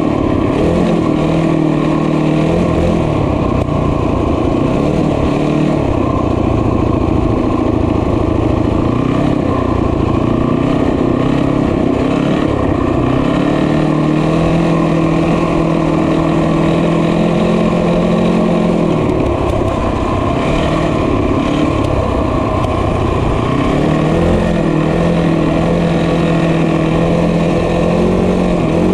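Small motorbike engine running under way. Its note holds steady for stretches, then falls away about two-thirds of the way through and climbs back a few seconds later as the engine speed changes.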